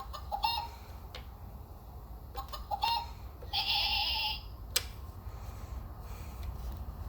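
Chicken clucking from an animal-sound toy: several short, alike clucks and a longer, harsher squawk, then a sharp click.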